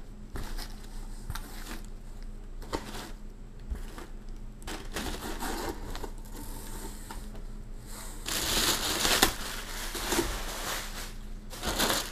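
Rustling and crinkling of plastic packing bags and cardboard as parts are handled inside a shipping box, coming and going unevenly, with a louder stretch of crinkling about eight to nine seconds in.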